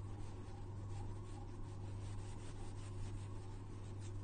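Mozzarella being grated by hand onto a pizza base: repeated rasping strokes of the cheese across a grater, about two or three a second, over a steady low hum.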